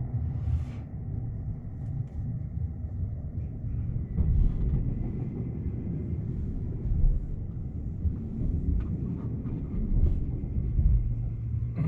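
Shonan-Shinjuku Line commuter train running, heard inside the passenger car: a steady low rumble of wheels on rail, with a few short clicks.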